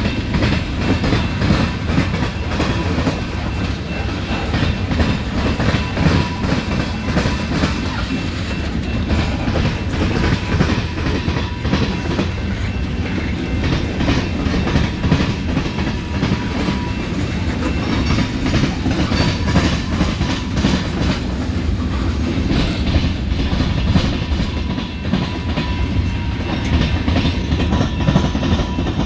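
Freight train cars rolling past close by, their wheels clattering steadily over a railroad diamond crossing in a continuous clickety-clack, with a faint steady ringing tone.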